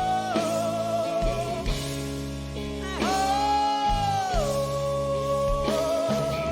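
Slow live blues-rock music: long held notes with vibrato, sliding from one pitch to the next, over sustained bass and accompaniment.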